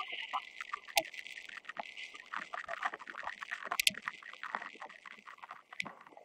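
Sharp cracks of field hockey sticks striking the ball, one about a second in and another just before four seconds, over a patter of small knocks and clicks.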